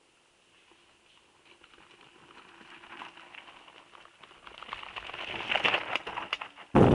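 A mountain bike coming down a stony dirt track approaches and passes close by. Tyres crunch and rattle over loose gravel, growing from near silence to loudest about six seconds in. Just before the end the sound switches abruptly to wind buffeting the microphone.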